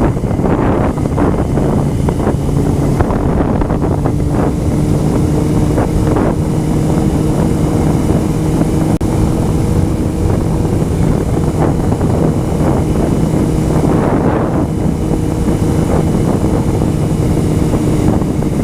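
Honda CBR motorcycle engine running at a steady cruise, its note holding even, under heavy wind noise rushing across the microphone.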